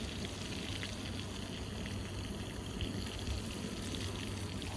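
Lingcod frying in butter in a skillet on a canister camp stove: a steady sizzle with scattered small crackles, and a brief knock right at the end.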